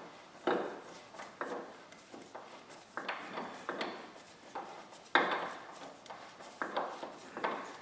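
Irregular light metallic clinks and knocks of hand tools against the ATV's axle parts, about a dozen sharp taps with short ringing tails.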